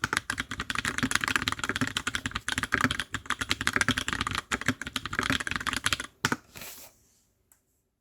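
Fast, continuous typing on a TX65 custom mechanical keyboard with PBT keycaps, many key strokes a second. The typing stops about six seconds in, after a final stroke or two.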